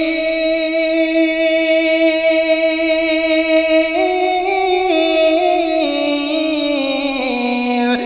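A male devotional singer holding one long sung note, then drawing it out in a slow melisma that rises a step and comes down through several pitches.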